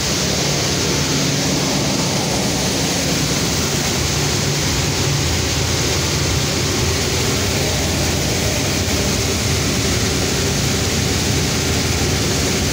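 Vibro separator grain cleaner running steadily: a motor-driven vibrating-screen machine humming, with the hiss of wheat grain pouring through it.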